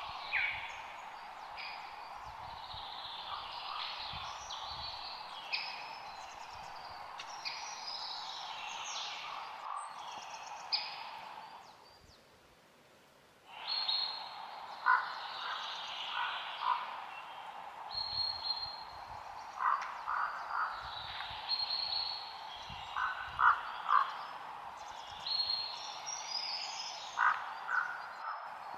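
Forest ambience: many birds chirping and calling over a steady background drone. Near the middle it fades to near silence for about a second and a half, then comes back with short calls repeated in quick groups of three or four.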